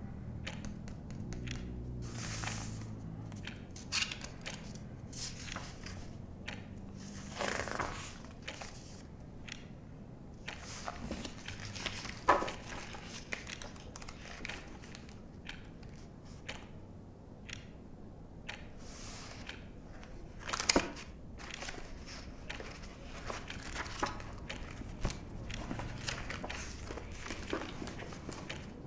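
Quiet indoor activity: paper rustling and crinkling with scattered small clicks and knocks, the sharpest knocks about 4, 12 and 21 seconds in. A low rumble of passing traffic fades out over the first few seconds.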